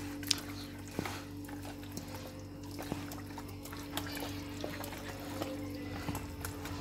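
Wet squelching and smacking of hands kneading raw chicken pieces in a yogurt and spice marinade in a plastic bowl, in short irregular squishes, over quiet steady background music.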